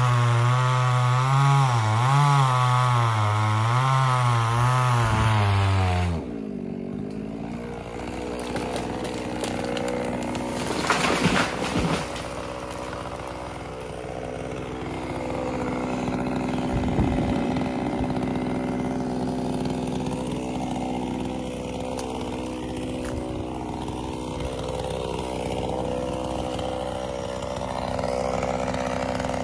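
Two-stroke chainsaw running loud and close, its engine pitch wavering up and down, then cutting off about six seconds in. After that a chainsaw keeps running more quietly at a steady pitch, with a short burst of louder noise about eleven seconds in.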